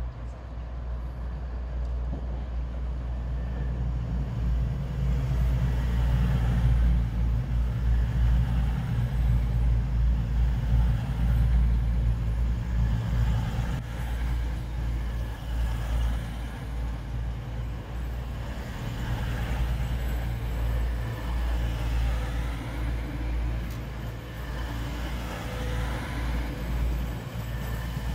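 Diesel train engine running with a steady low rumble that grows louder over the first several seconds and eases off a little after the middle.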